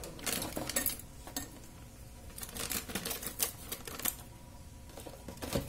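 Kitchen things clicking and clattering in quick bursts as they are handled on a countertop beside a stainless steel bowl with chopsticks in it, three bunches of clicks in all.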